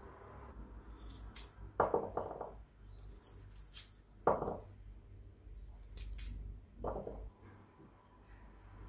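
Peeled garlic cloves being cut with a kitchen knife over a wooden mortar: three short crisp cuts, with lighter clicks and taps as the pieces drop into the wood.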